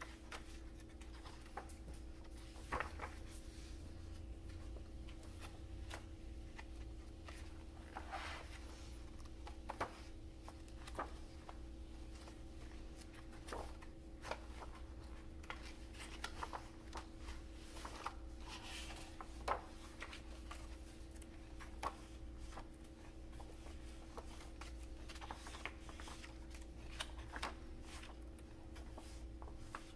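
Paper book pages being turned and smoothed by hand: scattered soft rustles and flicks, over a faint steady electrical-sounding hum.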